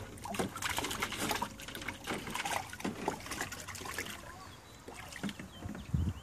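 Water splashing and sloshing in a small dog pool as a dog plays after a swimming toy fish: a quick run of splashes for about four seconds, then quieter lapping with a low thump near the end.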